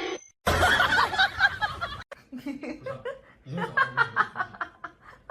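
A person laughing in short, quick bursts, most of all from about two seconds in.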